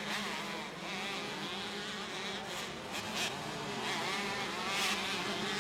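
Two-stroke motocross bikes racing, their engines buzzing and revving up and down.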